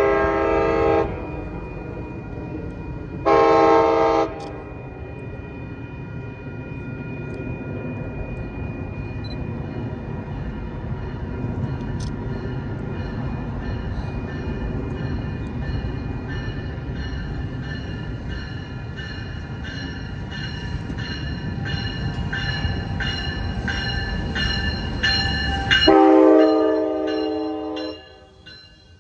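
Amtrak California passenger train with bilevel cars pulling into the station. Two short horn blasts at the start and a longer one near the end. In between, a steady rumble grows louder as the train draws alongside, with its bell ringing in even strokes.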